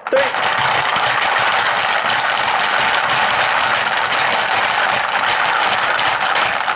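Hungry Hungry Hippos game in full play: several players rapidly pounding the plastic hippo levers, the hippo heads clacking down onto the board while the marbles rattle across it. The result is a continuous dense plastic clatter.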